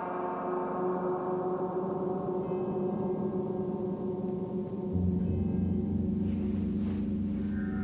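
Horror-film score: a gong-like metallic tone rings on with many steady overtones, and a deep low drone joins about five seconds in.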